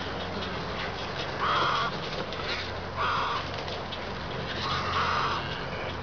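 Three harsh, croaking squawks from wading birds in a heron rookery, each about half a second long and spaced roughly a second and a half apart, over a steady low hum.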